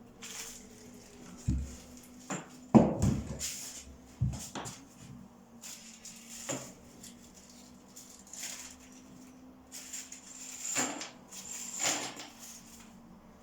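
Irregular knocks, thuds and scrapes of work on a wooden subfloor, the loudest a heavy thump about three seconds in.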